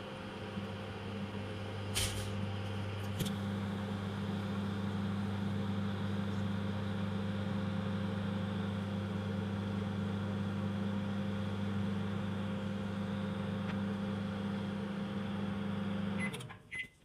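Microwave oven running with a steady low hum while it heats marshmallows on the turntable, with two brief clicks a few seconds in. The hum cuts off suddenly near the end as the oven stops, followed by a few sharp clicks.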